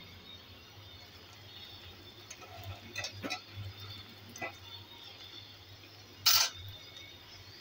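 Potato fries frying in oil in a pan, with a faint steady sizzle. A few light clicks come about three seconds in, and a single sharp, much louder knock comes a little after six seconds.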